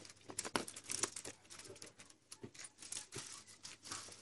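Dry straw and twigs crackling and rustling, with scattered irregular sharp snaps, as they are handled and fed onto a small open grill fire.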